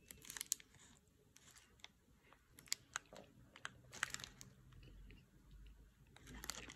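A person biting into and chewing a chocolate-glazed ice cream bar: faint, scattered crunches of the frozen coating, with some crinkling of the foil wrapper.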